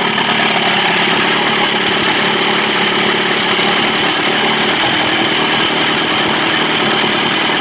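Johnson 25 hp two-stroke outboard motor idling steadily, with its throttle pickup freshly readjusted.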